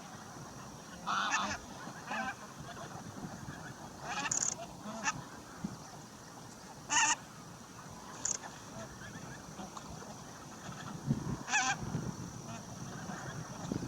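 Bar-headed geese honking: short, nasal calls come singly or in quick pairs every second or two, at irregular intervals, with the loudest one about halfway through.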